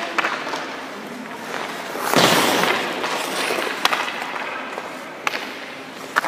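Ice-rink practice sounds: a loud skate-blade scrape on the ice about two seconds in, then a few sharp cracks of puck and stick that echo in the rink.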